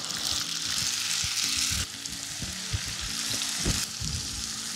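Onion puree sizzling as it fries in hot oil in a non-stick wok, stirred with a silicone spatula that makes soft strokes against the pan. The sizzle drops a little in level about two seconds in.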